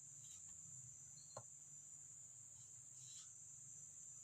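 Near silence: room tone with a steady high-pitched hiss and a faint low hum, and one faint click about a second and a half in.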